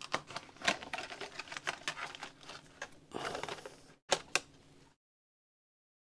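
Clear plastic clamshell packaging of an SSD being prised open and handled: a run of light plastic clicks and crackles, a short rustle about three seconds in, and two sharper clicks a second later, after which the sound cuts off.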